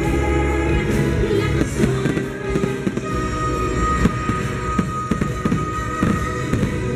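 Aerial fireworks bursting overhead with many rapid pops and crackles, heard over the show's loud accompanying music.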